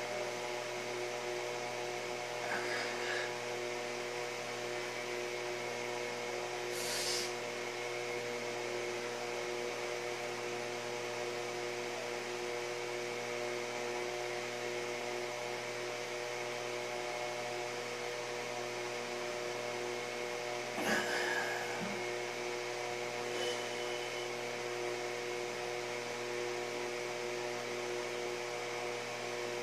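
A steady electrical hum made of several even tones, with a few brief faint noises, the clearest a short knock about two-thirds of the way through.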